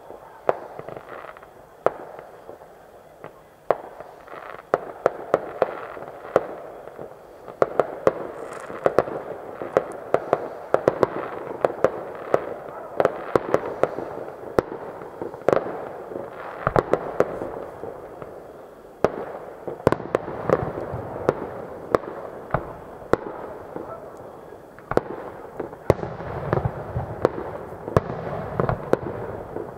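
Fireworks display: a rapid, irregular stream of sharp pops and bangs from bursting shells over a continuous crackle. The pops come thicker after the first few seconds, and deeper booms join near the end.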